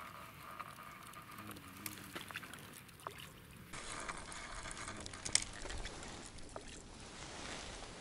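Quiet waterside ambience, then a hooked fish being played in on a spinning rod: water splashing and reel and rod handling noises, with one sharp knock a little past five seconds in.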